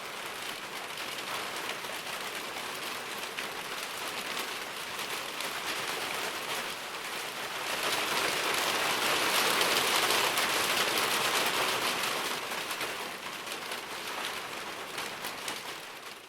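Steady rain falling on a surface, a dense hiss with fine patter of drops; it swells heavier about eight seconds in, eases after twelve seconds and fades out at the end.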